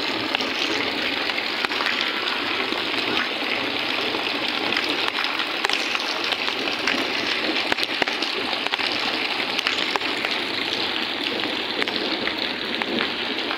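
Heavy rain falling steadily into standing floodwater, a dense hiss of drops splashing on the water's surface.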